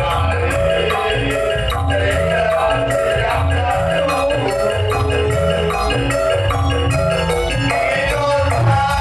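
Live electronic keyboard music played loud through a PA sound system: a melody over a repeating bass line and regular percussion hits.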